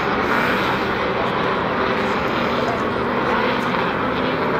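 Air-cooled Volkswagen flat-four engines of Formula Vee race cars running steadily at speed.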